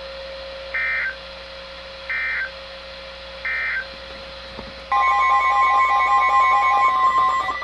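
Weather radio alert tones: three short digital data bursts about a second and a quarter apart, the end-of-message code that closes a warning broadcast. About five seconds in, a louder steady electronic alarm tone starts and runs for under three seconds, the warning alarm tone that announces the next warning.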